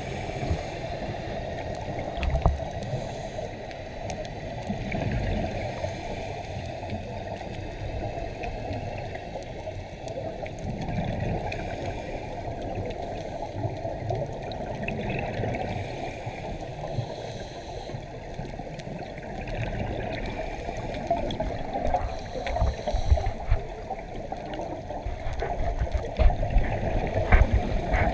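Muffled underwater noise through a GoPro's waterproof housing, with the low gurgling rumble of scuba divers' exhaust bubbles, coming more often and louder near the end.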